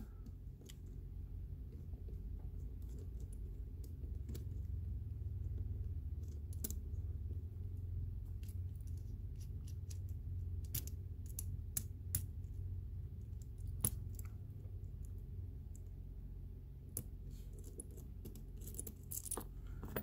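Light metallic clicks and taps from a brass lock cylinder being unscrewed and worked with small steel tools, scattered at irregular intervals with a quick run of them near the end, over a steady low hum.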